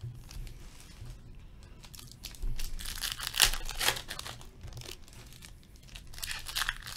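Trading card pack wrappers crinkling and rustling as hockey card packs are opened and the cards handled, in short bursts that are loudest from about two and a half to four seconds in.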